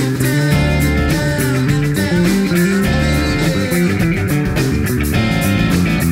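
Instrumental rock played by a band: electric guitar and bass guitar over drums with cymbals, with bending guitar notes.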